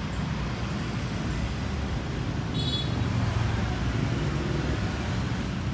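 Street traffic, mostly motorbikes: a steady low rumble of passing vehicles, with one short high-pitched sound about halfway through.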